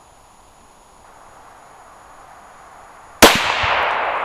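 A single .308 Winchester rifle shot, a 168-grain Hornady BTHP handload seated touching the lands, fired from a Savage Model 10 bolt-action rifle with a 26-inch bull barrel. One sharp crack about three seconds in, followed by a long echo fading slowly.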